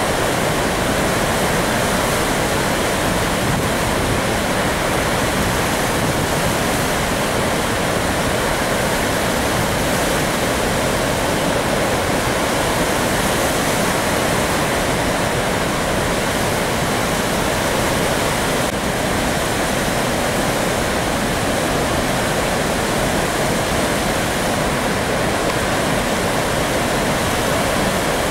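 Steady, loud rush of floodwater pouring through a dam's open spillway crest gates, an even unbroken roar of falling water.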